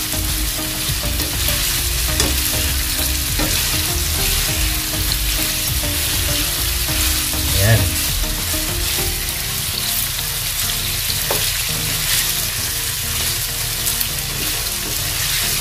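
Raw chicken pieces sizzling in hot oil in a frying pan with sautéed onion, garlic and ginger, stirred with a spatula that scrapes against the pan now and then.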